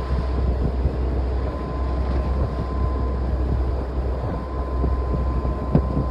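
Fishing boat's engine droning under wind buffeting the microphone and the rush of rough sea along the hull, with a faint steady whine above it.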